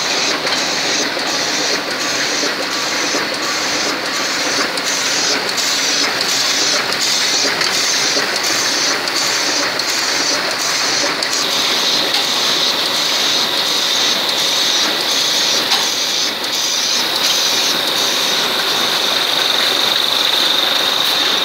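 Ryobi 520 sheetfed offset printing press running: a steady mechanical clatter with a regular beat of about one and a half press cycles a second, and a high steady whine over it.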